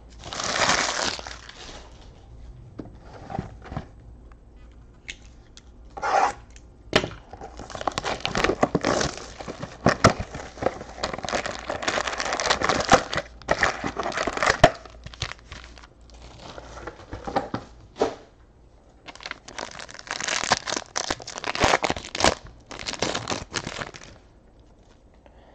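Foil wrappers of Panini Chronicles baseball card packs crinkling and tearing in repeated bursts, with sharp crackles, as packs are pulled from a hobby box, handled and torn open.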